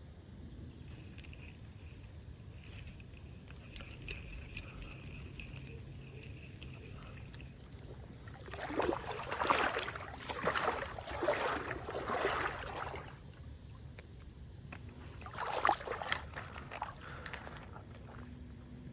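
Insects drone steadily at a high pitch. Over them come two spells of louder rough scuffing noise, one around the middle and a shorter one a few seconds later.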